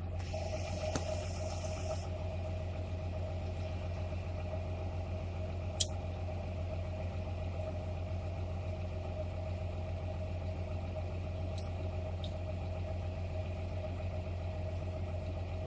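Tractor engine running at a steady speed: a constant deep hum with a steady whine over it. A few sharp clicks break through, the clearest about six seconds in, and there is a brief hiss in the first two seconds.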